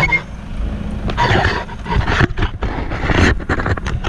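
Handling noise from a hand-held action camera swinging while its holder walks: irregular rubbing and knocking as it brushes against clothing.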